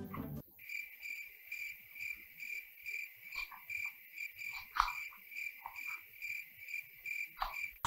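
Crickets chirping, a steady pulsed chirp about four times a second, as a 'crickets' sound effect for silence, with a few faint clicks underneath.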